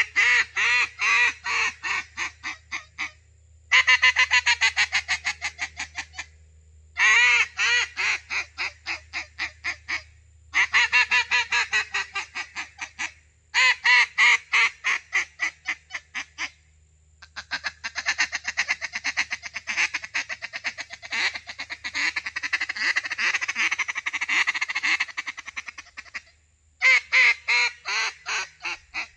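Hand-blown duck call imitating a mallard hen: repeated series of quacks, each series starting loud and tapering off, with a longer, faster run of rapid notes in the middle of the stretch.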